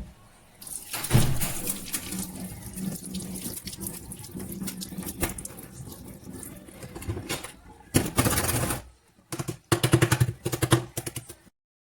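Water running from a tap into a sink, steady at first, then in two louder gushes near the end before it cuts off.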